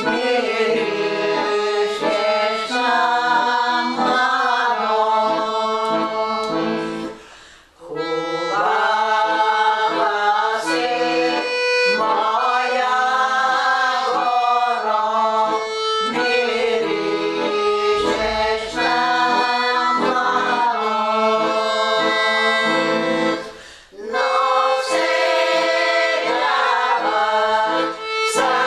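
Background music: a melodic tune of sustained notes that breaks off briefly twice.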